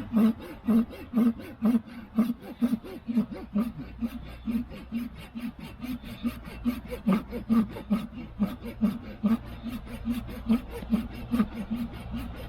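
Small folding pull saw with a fine-tooth blade cutting through a branch, its teeth rasping in a steady back-and-forth rhythm of about two strokes a second.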